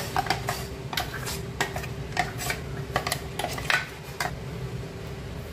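Steel spoon scraping and clinking inside a steel mixer-grinder jar, scooping thick batter out. It is a quick, irregular run of clinks and scrapes that stops about four seconds in.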